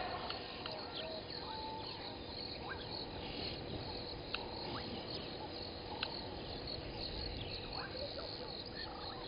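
Chorus of insects and frogs calling: a steady, even background with many short chirps scattered throughout.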